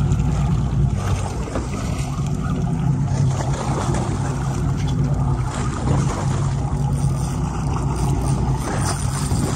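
A charter fishing boat at sea, with its engine making a steady low rumble under a haze of water noise.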